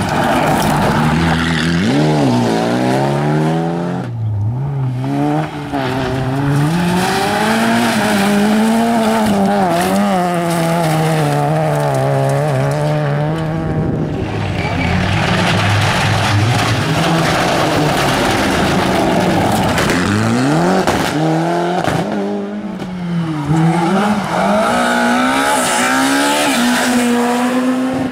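Rally cars at competition speed, one after another: engines revving high and dropping back again and again as they change gear and slow for corners, with a hiss of tyres and road noise over them.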